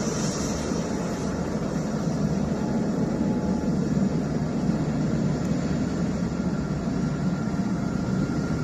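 Boeing 787-9 airliner's jet engines running: a steady low rumble that holds even, with no change in pitch or level.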